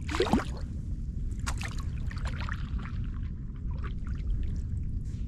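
A paddle dipping and pulling through shallow marsh water, with water gurgling off the blade at the start and scattered trickles and drips after, over a steady low rumble.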